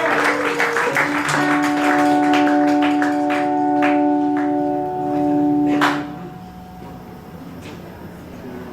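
Audience clapping and cheering while a band's instrument holds a steady chord; both stop about six seconds in, leaving a quieter room.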